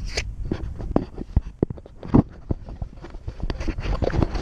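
Camera being handled and repositioned on its mount: irregular knocks, clicks and rubbing close to the microphone over a low rumble.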